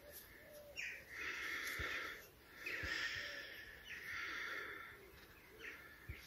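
Handheld metal-detecting pinpointer giving about four buzzing alerts, each roughly a second long, several starting with a brief rising sweep. It is signalling metal close to its tip as it is swept over the loosened soil to locate the buried target.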